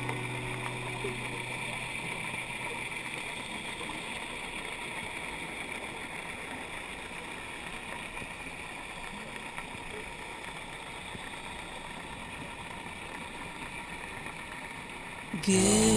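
Steady muffled underwater noise picked up through the camera's housing: an even hiss with a faint steady hum, with no clear breathing rhythm. Background music cuts back in just before the end.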